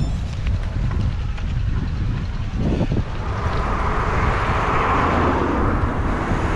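Wind rumbling on the microphone while cycling along a road, with a motor vehicle passing; its road noise swells from about halfway through and eases near the end.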